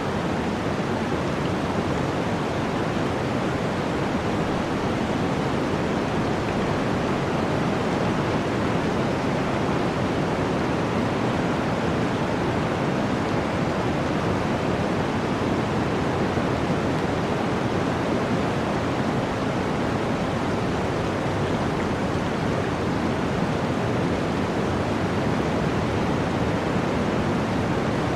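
Flowing water rushing steadily, an even, unbroken wash of sound with no separate splashes or drops.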